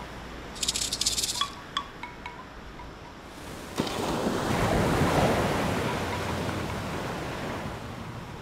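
Closing logo sting sound design: shimmering chime-like rattles and a few small pings. About four seconds in comes a sharp hit, then a whooshing swell of noise that rises and slowly dies away.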